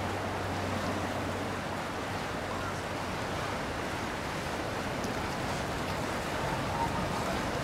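Steady rushing of water and wind on the river, with a low boat-engine hum that fades out about two seconds in.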